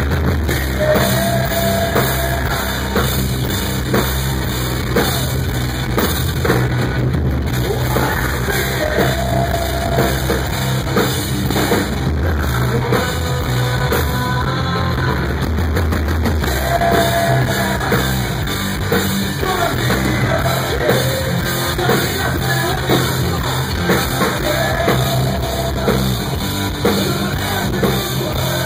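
Live rock band playing loud: electric guitar, bass guitar and drum kit, with sung phrases over them.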